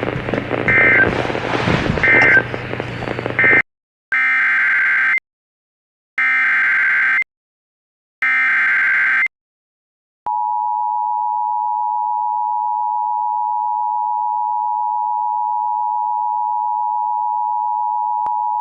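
Emergency Alert System tones over radio hiss. Three short SAME end-of-message data blips close out one alert. Then three one-second SAME header data bursts start the next alert, followed by the steady two-tone EAS attention signal (853 and 960 Hz), held for about eight seconds.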